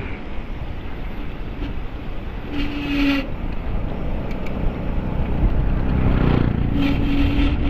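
Steady low rumble of riding noise and wind on a bike-mounted microphone, growing louder in the second half. Twice, about four seconds apart, a short steady tone cuts through it.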